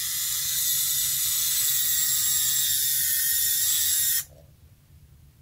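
Small electric steering motor of a 3D-printed rover bogie whining steadily as it swings the cleated front wheel back to straight on carpet, cutting off suddenly about four seconds in.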